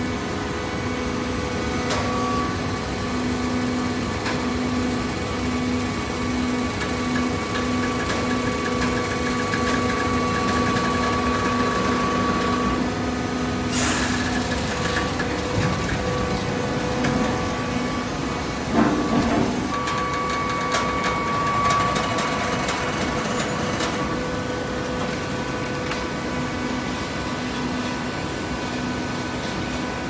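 Horizontal hydraulic baler running: a steady machine hum with constant whining tones. There is a sharp clank about 14 seconds in and a knock near 19 seconds.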